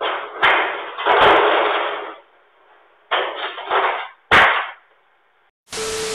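Several loud, rough bursts of noise with knocks in them, then a sharp bang about four seconds in, all heard through a doorbell camera's muffled, narrow-range microphone. Near the end comes a burst of TV static hiss with a steady tone.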